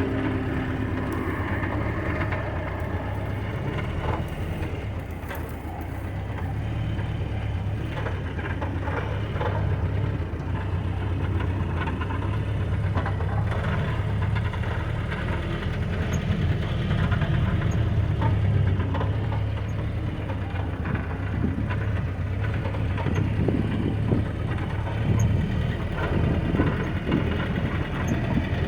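Old Jeep's engine running steadily at low speed off-road, with scattered knocks and rattles as it crawls over rough ground.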